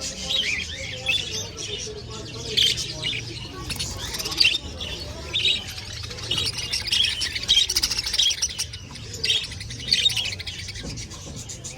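Many small birds chirping and twittering at once: a dense, continuous chorus of short, high, overlapping calls.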